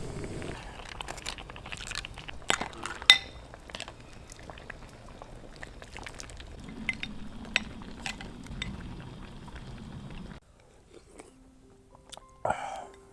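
Close-up eating sounds of crab: shell crunching, chewing and biting, with light clinks of utensils and dishes. Near the end this gives way to soft background music and one more crunch.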